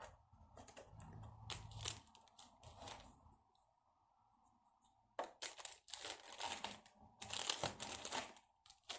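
Faint crinkling and tearing of a parcel's packaging being handled and opened, with scattered clicks at first and then clusters of short rustles in the second half.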